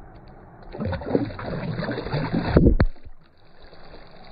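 Slowed-down water sloshing and splashing as a released bass kicks free of the hands and swims off. It sounds deep and dull, loudest from about a second in until just before three seconds, then settles to a faint low hiss.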